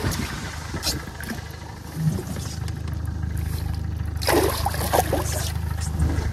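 Splashing as a zander is lowered into the water and swims off from the side of a boat, with the low, steady hum of a boat motor that sets in about two seconds in.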